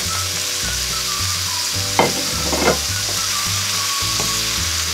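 Sliced vegetables and chicken sizzling in a very hot wok of vegetable oil as they are stirred with a wooden spoon, with two short louder clunks of the spoon about two seconds in.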